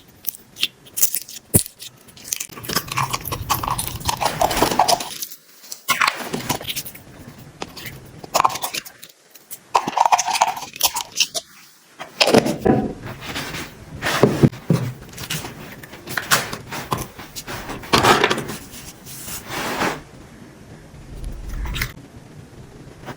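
Clear slime mixed with beads and small charms being squeezed, stretched and poked by hand: wet squelches and sharp popping clicks, with crunching and clinking from the add-ins. It quiets in the last few seconds.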